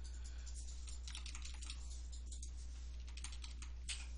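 Computer keyboard keys being tapped in quick, irregular clicks, over a low steady electrical hum.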